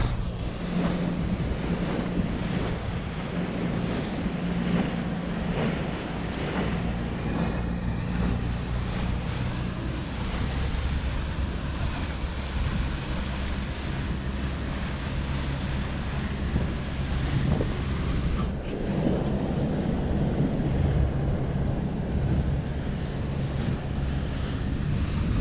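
Motorboat engine running steadily at sea, with wind buffeting the microphone and water rushing past.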